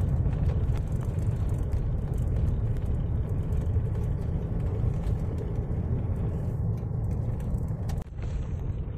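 A car driving, heard from inside the cabin: a steady low rumble of engine and road noise with a few faint rattles and clicks. The sound drops and changes abruptly about eight seconds in.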